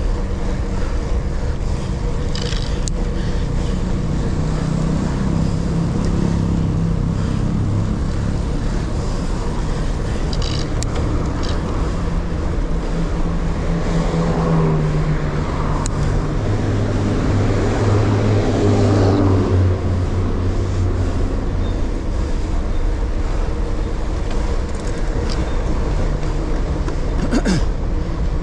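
Road ride noise on a bicycle-mounted action camera: wind rushing over the microphone, with the hum of a nearby motor vehicle's engine through the middle, dropping lower past the halfway point.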